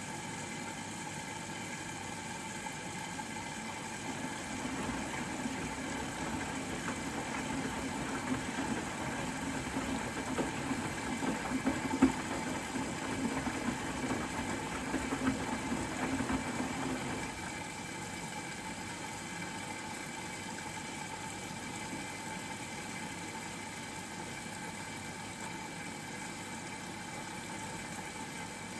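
Bosch Serie 4 WAK20260TR front-loading washing machine tumbling its wash load: the drum turns with a motor hum and rattling swish of laundry and water, with one sharp knock near the middle. About two-thirds of the way through the drum stops, leaving a steady low hum.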